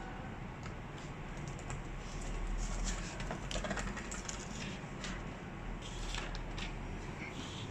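Scattered light clicks and taps of an ASUS ROG Strix G15 gaming laptop being handled, over a low hum.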